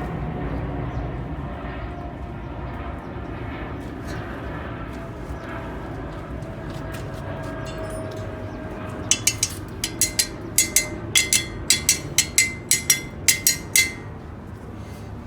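A Toyota Hiace van driving: steady low road and engine rumble, with a faint tone sliding slowly down. A quick run of sharp clicks, paired about twice a second, comes in past the middle and stops shortly before the end.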